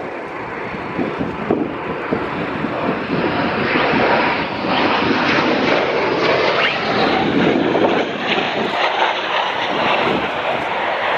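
F-15 fighter jet's twin engines at high power: a loud jet noise that builds over the first four seconds and then holds, with a crackling texture through the middle.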